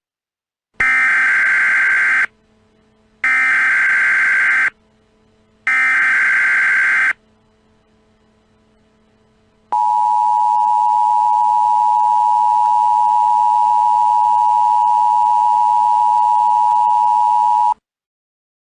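Emergency Alert System header: three short bursts of digital SAME data tones, each about a second and a half long, then the steady two-tone EAS attention signal held for about eight seconds and cutting off suddenly. Together they announce the start of an emergency alert.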